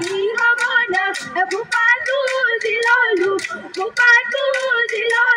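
Group of women singing an Assamese Bihu song in unison over a quick, steady beat of sharp strikes.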